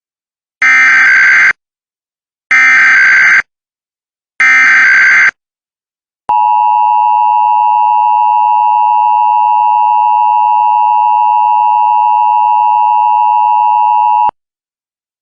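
Emergency Alert System header and attention signal: three short bursts of SAME digital data tones, each about a second long and a second apart, then the steady two-tone attention signal, held for about eight seconds before it cuts off. Together they mark the start of an EAS alert, here a required monthly test.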